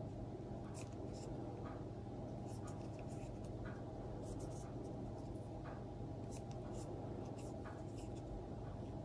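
Faint scratching and irregular soft ticks of a 2 mm crochet hook pulling yarn through stitches during single crochet, over a steady low hum.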